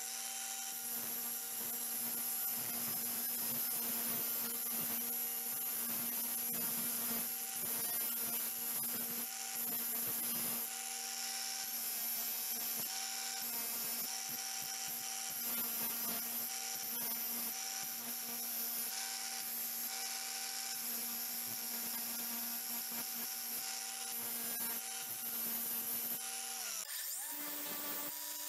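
Greenworks angle grinder running steadily with a constant motor whine while its disc grinds the steel end of a wrench. The sound changes shortly before the end.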